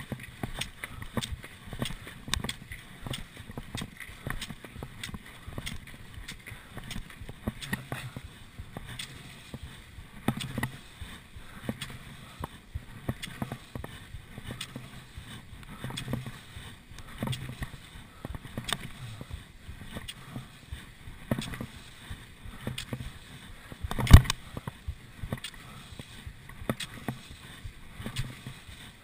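Cross-country skis swishing along classic tracks on packed snow, with repeated clicks from ski poles planting in a steady stroke rhythm. A single sharp knock stands out about 24 seconds in.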